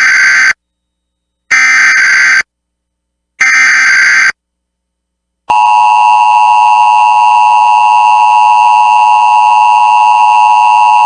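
Emergency Alert System SAME header: three identical bursts of digital data tones, each about a second long and about two seconds apart. About five seconds in, a loud steady attention tone starts and holds, marking the start of a new weather alert, a snow squall warning.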